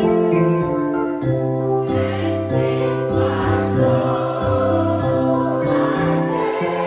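Church music: held keyboard chords changing every second or so, with a choir singing along.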